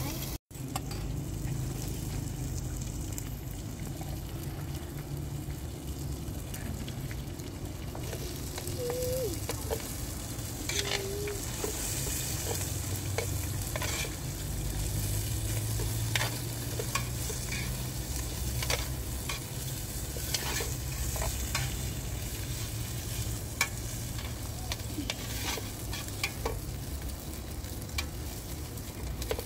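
Food frying in a steel pot over an open wood fire, with a spoon scraping and clinking against the pot at irregular moments as it is stirred.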